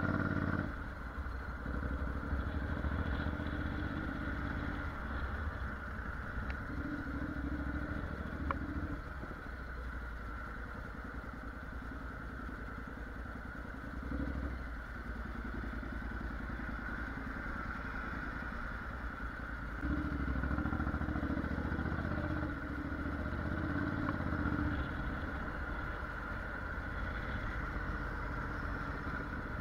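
Honda NC750X's parallel-twin engine running as the motorcycle is ridden, growing louder for a few seconds at a time, near the start, around eight seconds in and again about twenty seconds in, as it pulls harder.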